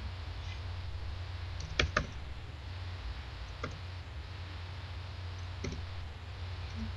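Scattered computer keyboard keystrokes: single sharp clicks a second or two apart, two in quick succession about two seconds in, over a steady low hum.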